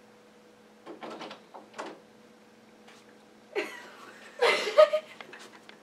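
A room door being opened and someone stepping in, heard as a few short rustles and knocks. The loudest are two brief noisy bursts about three and a half and four and a half seconds in, over a faint steady hum.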